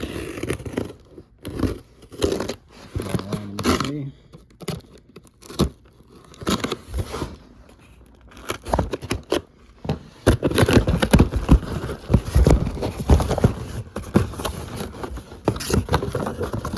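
Cardboard box and its packaging being torn open and rummaged through: irregular scraping, tearing and crinkling, getting busier and louder about ten seconds in.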